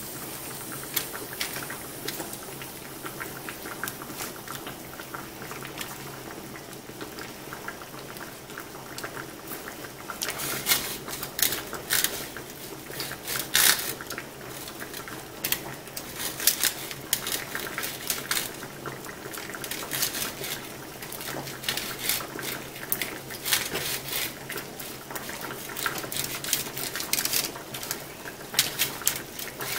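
Silicone pastry brush dabbing beaten egg onto raw pastry, with soft wet brushing and scattered light clicks and taps, more frequent in the second half. A faint steady hum runs underneath.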